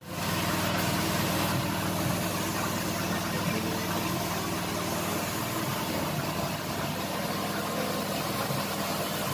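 Air-fed paint spray gun hissing steadily over the low, even hum of a running motor.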